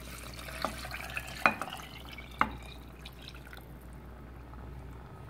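Coconut milk pouring from a glass into an aluminium pressure cooker of chicken masala, a soft liquid splash and drip, with three sharp clicks in the first half.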